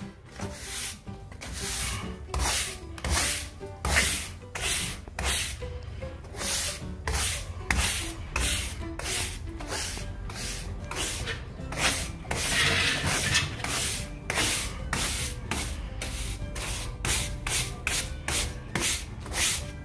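Stiff broom bristles brushed over a rough plaster wall in repeated strokes, about two to three a second, sweeping loose sand and dust out of an opened crack before it is sealed.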